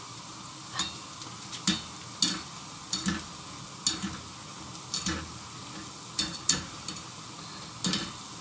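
Zalabia dough balls deep-frying in hot oil for a second fry to crisp them, a steady sizzle. A wire spider skimmer stirs them, clinking against the stainless steel pan about once or twice a second.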